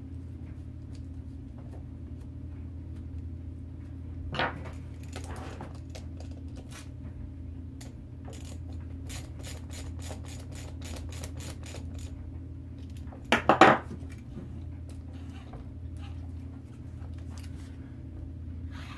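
Small metal clicks and clinks of a wheel nut and hand tool being worked onto an RC rock crawler's wheel hub: a sharp click about four seconds in, a quick run of light ticks in the middle, and a louder brief clatter about two-thirds of the way through, over a steady low hum.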